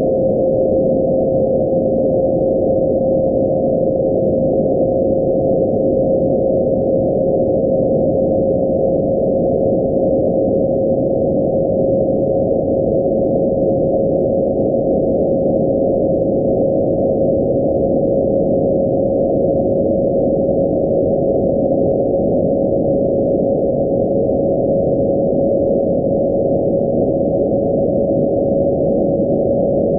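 Radio receiver audio of NASA's IMAGE satellite's S-band beacon carrier: a steady whistling tone that slowly drifts up in pitch with the satellite's Doppler shift, over the receiver's hiss, which is cut off sharply just below 1 kHz.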